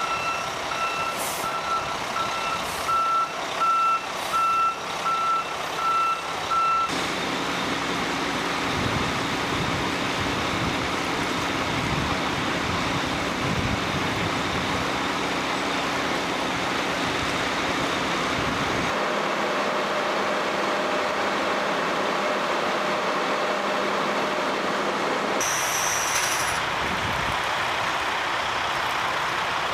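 Reversing alarm of a heavy airfield snow-removal vehicle beeping evenly for about the first seven seconds, then the steady drone of large snow blowers and runway brooms at work. A brief hiss, like an air brake releasing, near the end.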